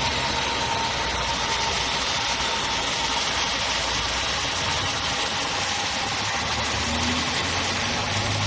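Great Wall Voleex C30's 1.5 VVT four-cylinder petrol engine idling steadily, with the engine ticking that the car is being checked for. A mechanic suspects a fault in the VVT system, or possibly the injectors.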